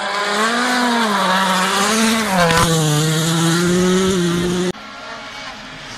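A World Rally Car's 1.6-litre turbocharged four-cylinder engine revving hard through a corner, its pitch rising and falling over the first two and a half seconds, then dropping and holding steady. The loud engine note cuts off suddenly near the end, leaving a quieter engine sound.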